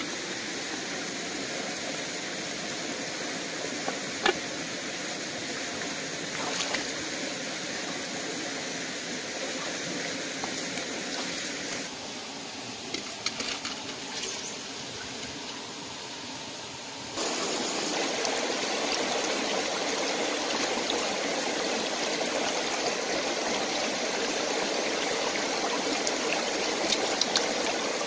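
Shallow rocky stream running steadily, with a few faint clicks and knocks from stones or clay pots. The water turns quieter for a few seconds about halfway through, then comes back louder.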